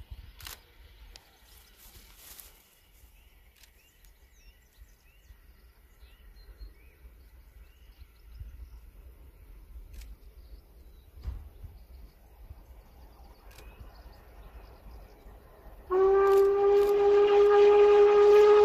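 Faint bird chirps and wind rumble, then near the end one long, loud blast of the whistle on the steam locomotive 45690 Leander, an LMS Jubilee class 4-6-0, held at a steady pitch for nearly three seconds.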